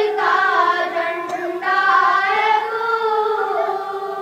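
A boy singing an Urdu devotional song alone, unaccompanied, drawing out long held notes that bend slowly in pitch.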